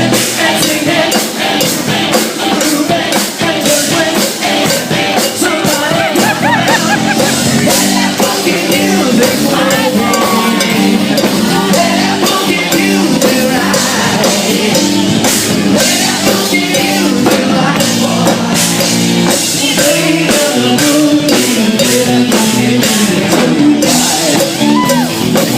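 Live rock band playing loudly, a drum kit keeping a steady beat under singing.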